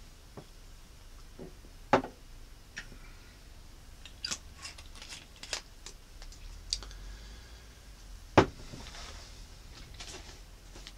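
Scattered short clicks and knocks, with a sharp knock about two seconds in, a run of small clicks in the middle, and the loudest knock around eight seconds in.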